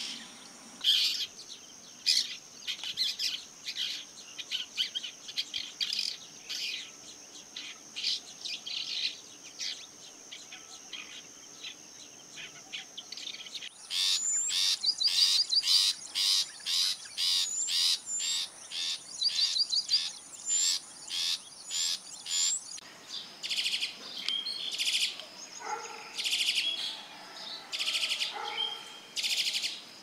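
Wild birdsong: an oriental magpie-robin singing quick runs of short, varied high notes, then, from about halfway, a long-tailed shrike calling with fast repeated notes. A steady high tone, like an insect, sounds behind the birds through most of it.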